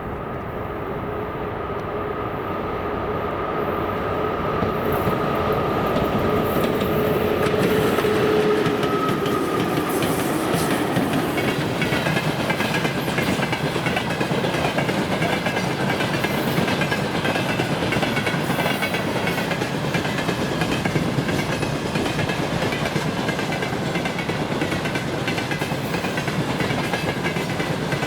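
VL11 electric locomotive and its freight train passing: a steady whine grows louder as the locomotive approaches and fades about ten seconds in, then the freight wagons roll by with a continuous rhythmic clickety-clack of wheels over the rail joints.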